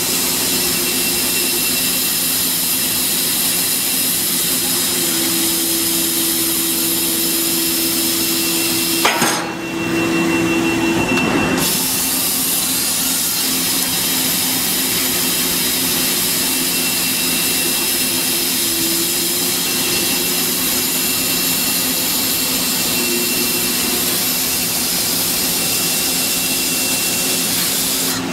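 Bystronic Bystar 3015 CNC laser cutting machine cutting steel sheet: a steady hiss of machine noise with a constant high whine and a low hum through it. About nine seconds in, the hiss breaks off for a couple of seconds and then picks up again.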